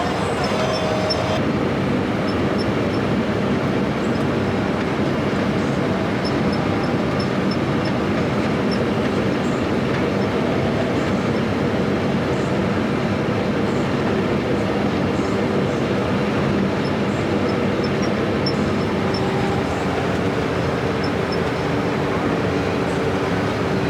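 New Holland combine harvester running steadily while harvesting oats: a continuous mechanical drone with a constant hum.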